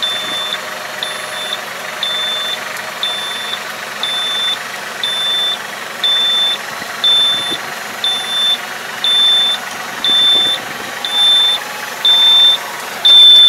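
Warning beeper sounding about once a second, a high steady tone, while the wings of a tractor-mounted folding puddling harrow fold up hydraulically; the beeps signal that the harrow is folding. The tractor's diesel engine runs steadily underneath.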